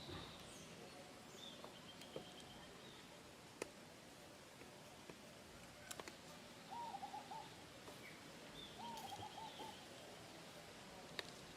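Faint outdoor ambience with distant bird calls: a short wavering hooting phrase sounds twice, about two seconds apart, among thin high chirps and a few sharp clicks.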